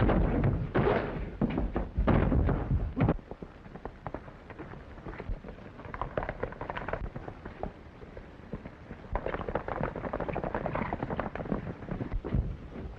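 Loud, dense thumps and bangs for about three seconds, then a quieter stretch of scattered knocks that fit a horse's galloping hoofbeats.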